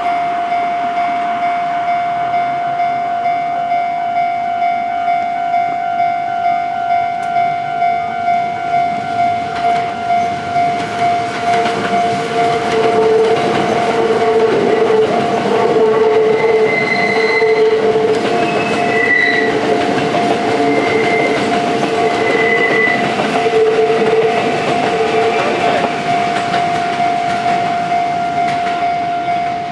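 Level-crossing warning bell ringing, a steady electronic ding at about one and a half strokes a second. About twelve seconds in, a two-car KiHa 48 and KiHa 40 diesel railcar train passes over the crossing, louder for some fourteen seconds, with a few short high squeaks, then fades while the bell keeps ringing.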